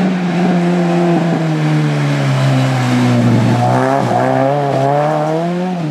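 Rally car engine running hard under load, its note holding steady, dipping briefly a few times, and climbing before dropping again near the end.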